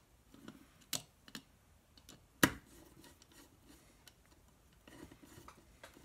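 Light clicks and taps of a screwdriver and wire at the screw terminals of a relay, with one sharper click about two and a half seconds in.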